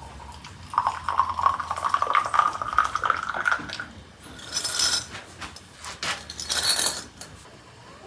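Hot water running from a samovar's tap into a small glass, its pitch rising steadily as the glass fills. This is followed by two short, noisy rushes of water and light clinks of glass.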